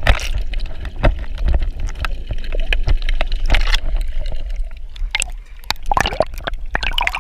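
Water gurgling and sloshing around a GoPro camera moving underwater and up to the surface, with many small crackling pops over a steady low rumble.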